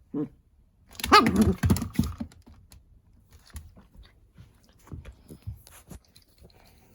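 Shiba Inu puppy vocalising: a short low sound at the start, then a louder, longer sliding complaint lasting about a second, followed by scattered light clicks and taps.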